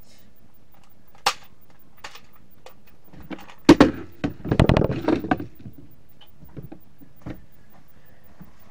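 Clicks and knocks from a toy foam-dart blaster being handled. A single sharp click comes about a second in. About two seconds later comes a loud knock, followed by a quick clatter of clicks and knocks lasting about a second.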